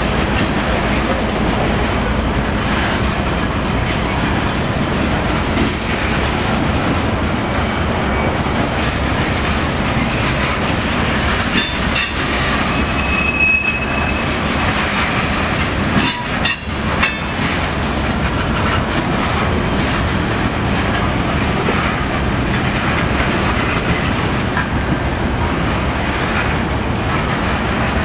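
Covered hopper cars of a freight train rolling past close by: a steady rumble of steel wheels on the rails. There are sharp clacks about twelve seconds in and a quick cluster of them about sixteen seconds in, and a brief high wheel squeal in between.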